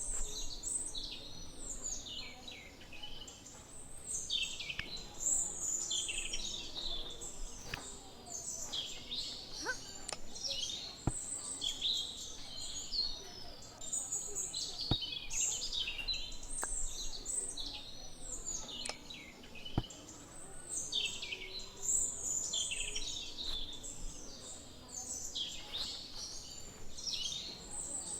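Many small birds chirping constantly, a busy overlapping chatter of quick, high chirps that sweep downward, with a few faint clicks among them.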